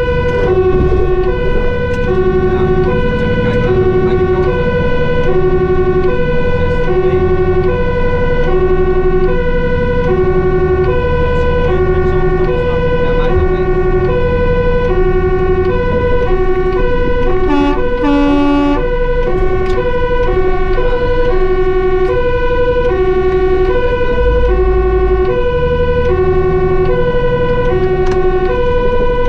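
Fire engine's two-tone siren alternating evenly between a high and a low note, each held about 0.7 s, heard from inside the cab over the truck's engine. A little past halfway, a different short horn-like tone briefly cuts in.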